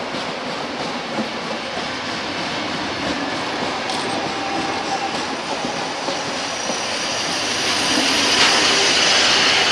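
Railway passenger carriages rolling past: a steady rumble and rattle of steel wheels on the rails, growing louder and hissier near the end.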